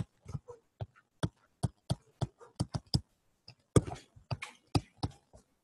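Plastic stylus tip tapping and scraping on a tablet screen during handwriting: an irregular run of sharp clicks, about three or four a second, a few with a short scratch.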